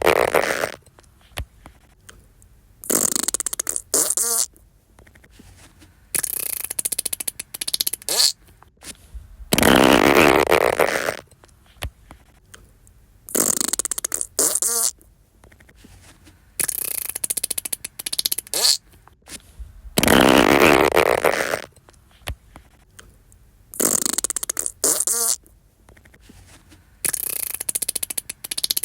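Fart sound effects: a series of about nine separate farts, a few seconds apart, some long and loud, others with a fast fluttering rattle. The same set of three repeats about every ten seconds.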